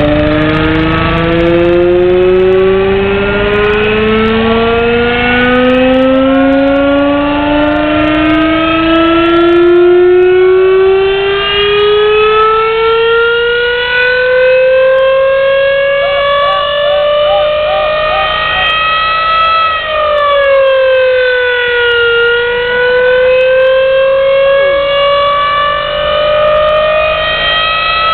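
Fairground ride siren wailing: one loud tone that climbs slowly and steadily for most of the time, sags briefly about twenty seconds in, then climbs again.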